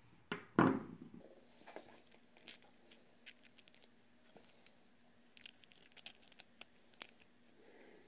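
3D-printed plastic parts clicking and scraping as they are handled and fitted together. About half a second in comes a louder, short scraping cut as a nub is trimmed.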